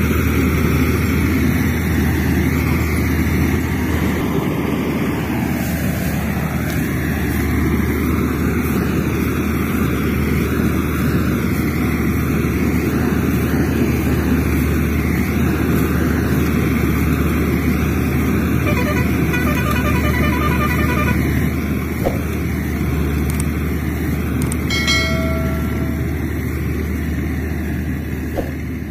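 Steady engine-like vehicle rumble with a low hum, and a brief horn toot near the end.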